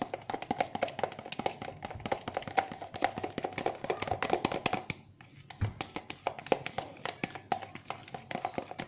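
A utensil clicking and tapping rapidly against a bowl while stirring a thick mix of shampoo, toothpaste and salt into slime, with a brief pause about five seconds in.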